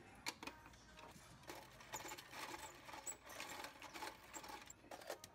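Manual hand-crank ice crusher grinding ice cubes: a rapid, irregular run of crunches and clicks.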